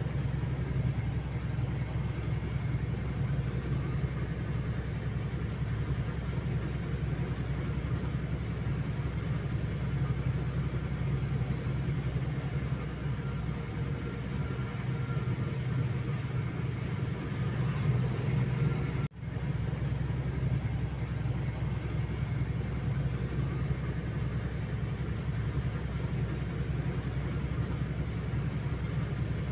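Steady low rumble of a truck's engine and road noise heard from inside the moving cab, with a brief gap in the sound about two-thirds of the way through.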